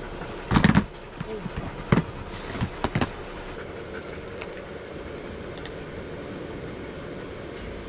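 A few knocks and clatters of things being handled in a plastic storage bin, the loudest about half a second and two seconds in, over a steady low background hum.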